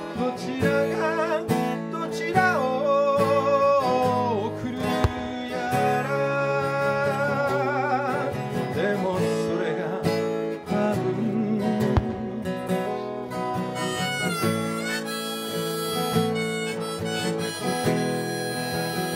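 Harmonica played in a neck rack over a strummed steel-string acoustic guitar, an instrumental break between sung lines of a folk song. The harmonica melody wavers with vibrato and bends between notes.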